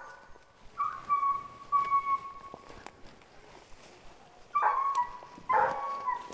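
Boykin Spaniel puppy whining: a couple of thin, high, drawn-out whines in the first half, then shorter, louder whines near the end.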